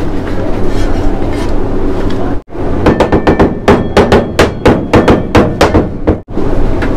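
A steady background din, then, after a sudden break about two and a half seconds in, a cleaver chopping fast on a thick plastic chopping board, about five or six sharp strokes a second.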